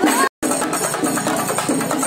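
Loud music with a steady percussion beat. The sound cuts out completely for an instant about a third of a second in, then the music carries on.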